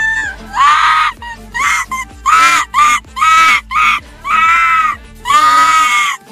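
Tibetan fox calling: a run of about eight loud, high, screaming yelps, mostly short, with a longer drawn-out one near the end.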